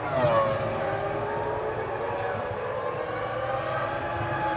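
Formula One car's V10 engine passing by, its high whine dropping sharply in pitch as it goes, then an engine note holding roughly steady.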